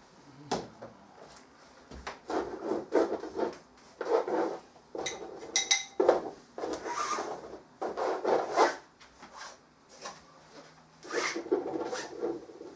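Paint tools scrubbing and scraping over a large canvas: a series of rasping rubbing strokes, each under a second, with short pauses between them.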